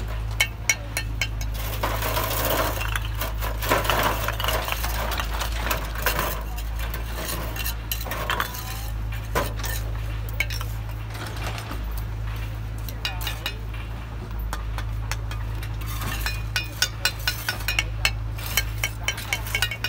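Steel bricklaying trowels scraping mortar and clinking against bricks as they are set and tapped into place. There are scattered sharp clinks, then a quick run of taps, about three or four a second, near the end.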